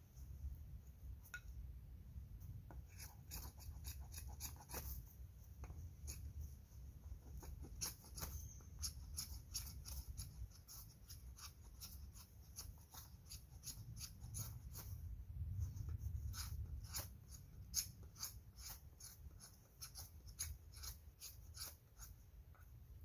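A knife blade scraping with short, quick strokes, about two or three a second, with a brief lull about two-thirds of the way through.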